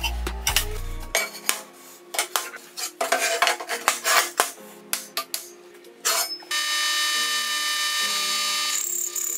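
Steel plates clanking and scraping as they are handled and slid on a steel worktable, a rapid run of sharp knocks. About two-thirds in, a drill press starts running with a hole cutter, a steady whine that holds to the end. Background music plays throughout.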